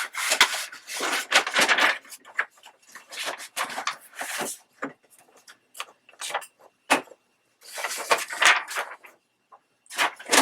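Sheet of paper rustling and sliding as it is fetched and laid out on a work table, in irregular bursts with short pauses between them.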